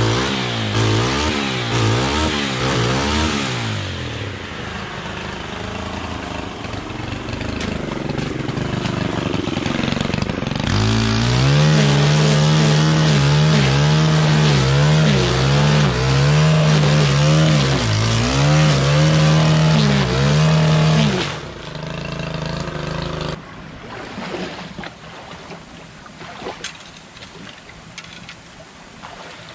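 Stihl FS 131 brush cutter's four-stroke engine revving up and down while cutting grass, then held at high throttle with brief dips. About two-thirds of the way through it drops to idle and then stops, leaving quieter rustling and running water.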